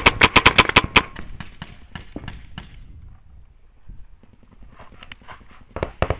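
Paintball marker (Planet Eclipse Etha) firing a rapid string of shots that stops about a second in. Scattered quieter pops of paintball fire follow, with a few louder pops near the end.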